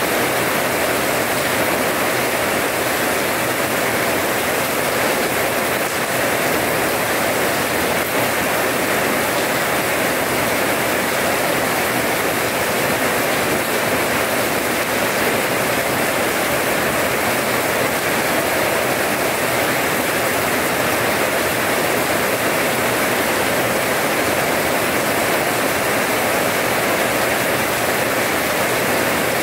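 Steady rain falling on wet paving, a constant even hiss of drops splashing into shallow puddles.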